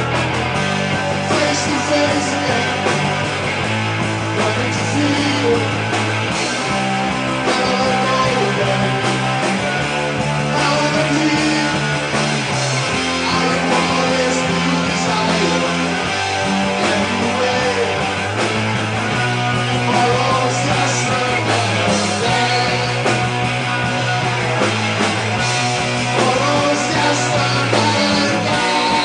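Live rock band playing: electric guitars, electric bass and a drum kit, the bass line stepping between held notes every second or two under steady drums and cymbals.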